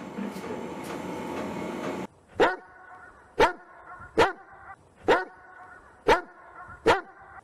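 A steady hiss for about two seconds, then a dog barking, single barks about once a second, six times.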